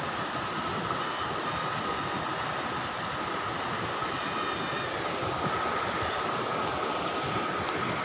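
Steady rush of river water flowing through rapids among rocks, with a faint steady high tone running under it.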